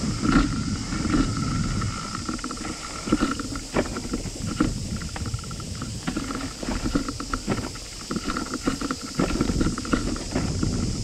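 Bicycle rattling and its tyres rumbling over a bumpy, leaf-covered dirt trail, picked up through a handlebar-mounted camera, with frequent sharp knocks from bumps and some wind on the microphone.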